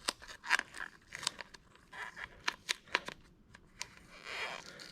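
3M 2080 vinyl wrap film crackling as it is lifted and worked by hand around a car door handle: an irregular scatter of sharp crinkles and ticks, with a short rustle about four seconds in.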